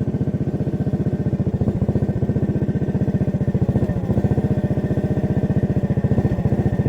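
Small gasoline engine of a rail vehicle running steadily, with an even, rapid chugging beat.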